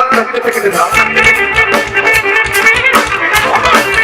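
Live band playing an instrumental passage: several pitched instruments holding and moving notes over a steady drum beat.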